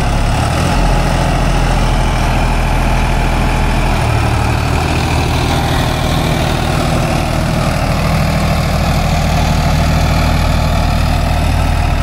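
Sonalika tractor's diesel engine running steadily and loud, at about idle; its low note changes slightly about four seconds in.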